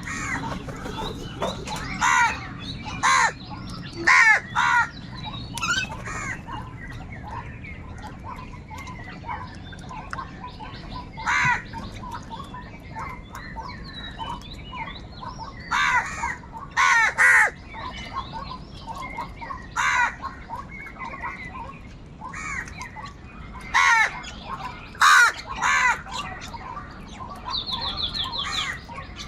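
Crows cawing over and over: loud, harsh caws in short groups of one to three, with smaller birds chirping in between. A quick run of high ticks near the end.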